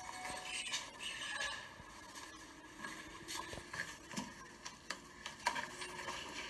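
Inside an elevator car: a steady faint hum under rubbing noise and a few sharp clicks, the loudest click about five and a half seconds in.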